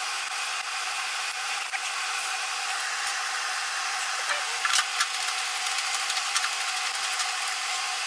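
A few light metallic clicks from seat-belt anchor hardware (belt end plate, bolt and washers) being handled and fitted by hand, over a steady hiss with a faint hum.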